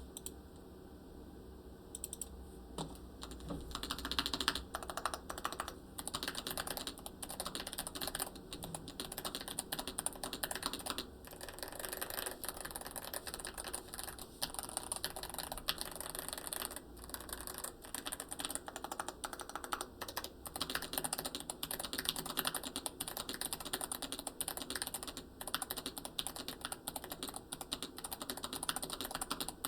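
Typing on a stock Hall effect mechanical keyboard with a steel plate and aluminium case: a fast, continuous run of keystroke clacks, starting about two seconds in with brief pauses now and then.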